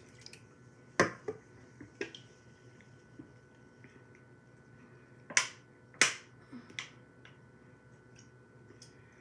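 Short, sharp gulps as a can of Sprite is chugged, heard as a few separate clicks. The loudest two come about half a second apart, a little past the middle.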